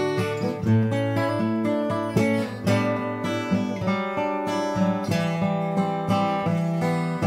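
Martin OM-28 steel-string acoustic guitar played solo: a steady run of picked notes and strummed chords, each attack ringing into the next.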